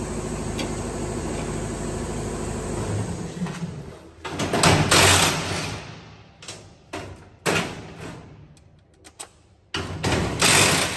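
An air compressor runs steadily and cuts off about three seconds in. Then a cordless drill is run in several short bursts on the metal bars of a Peterbilt 389's grille, the longest near the start and one near the end.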